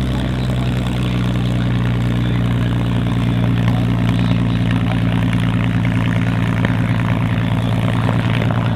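CAC CA-18 Mustang's Packard Merlin V-12 engine idling steadily, propeller turning, as the fighter taxis and turns on the apron.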